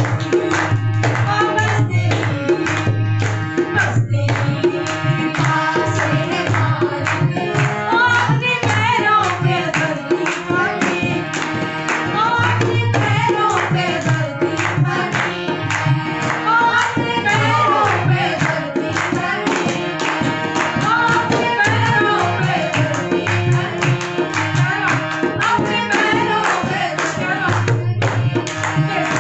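Hindi devotional bhajan sung by a woman to harmonium and dholak, with hands clapping along in rhythm.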